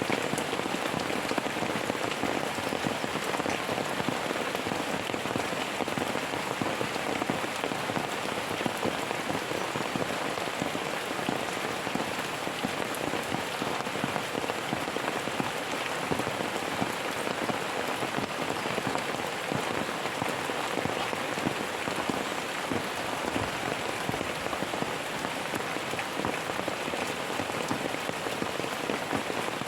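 Steady rain falling, its drops striking a surface in an even, unbroken hiss with no thunder.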